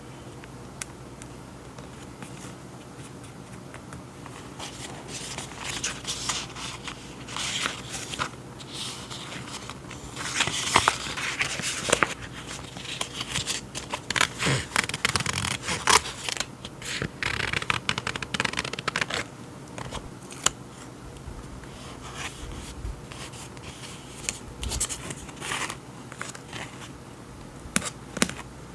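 Close-up handling of paper journaling supplies and their packaging: irregular rustling and scraping with many small clicks, busiest through the middle and sparser near the end.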